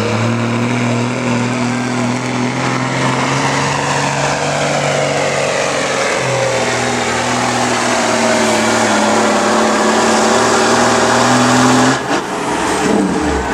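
B Model Mack truck engine pulling a sled under heavy load, a loud steady drone that shifts slightly in pitch partway through and cuts off suddenly about twelve seconds in as the pull ends.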